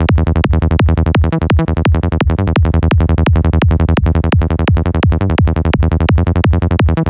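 Synthesized high-tech psytrance bass patch from Sylenth1, saturated with FabFilter Saturn's warm tape mode, looping at 170 BPM: rapid, evenly repeating short bass notes, about five or six a second, over a deep low end.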